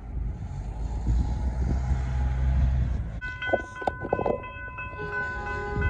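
A low rumble, then after an abrupt cut about three seconds in, the railway level crossing warning bells ring steadily with repeated strikes.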